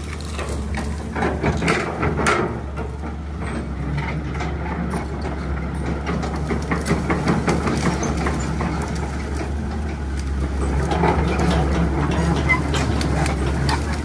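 Dump truck's engine running steadily with a deep drone, with frequent rattles and clicks over it.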